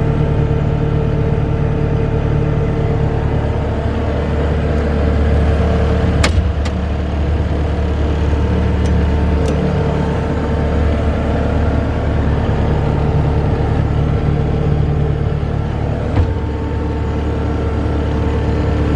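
Bobcat 864 tracked skid steer's diesel engine running steadily, with a sharp clank about a third of the way in and another one later on.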